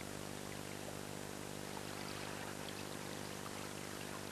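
Quiet underwater ambience: a steady, even wash of water hiss with a faint low hum beneath it.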